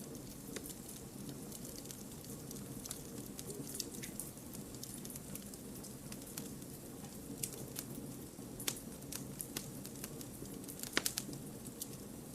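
Campfire of burning wood logs: a steady low rush of flames with irregular crackles and snaps, and a quick run of louder pops about eleven seconds in.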